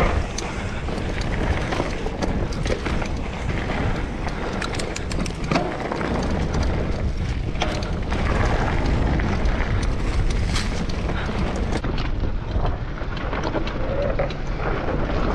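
Wind rushing over the microphone and the rumble of mountain-bike tyres rolling fast on a dirt trail, with frequent sharp clicks and rattles from the bike.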